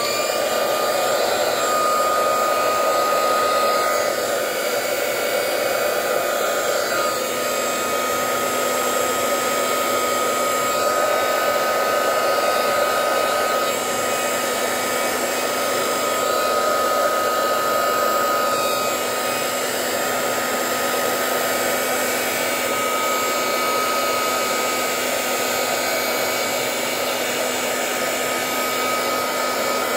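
Small mint-green craft heat gun running steadily, blowing hot air: an even rushing hiss with a thin steady whine on top.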